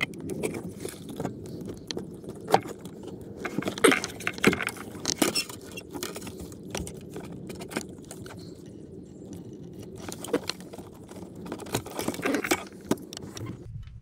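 Scattered metal clinks, knocks and rattles of hand tools and parts being handled under a car's dashboard, as the automatic brake pedal is taken out, over a steady low background noise. The clicks come in clusters, busiest about four seconds in and again near the end.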